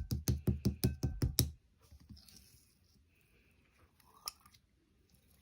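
A rapid, even run of sharp tapping clicks, about six a second, that stops suddenly after about a second and a half. Faint handling rustles follow, with a single click about four seconds in.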